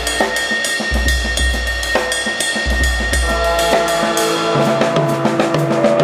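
Background music with a steady drum-kit beat, cymbals and a bass line under held notes.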